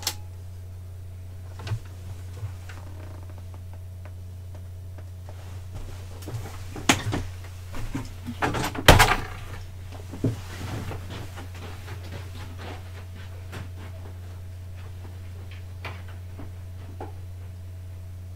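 A steady low electrical hum in a small room, with a few sharp knocks near the start and a cluster of clattering knocks and thuds in the middle, the loudest about nine seconds in.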